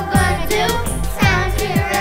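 Children's song: a group of children singing over a backing track with a kick drum about twice a second and a hi-hat.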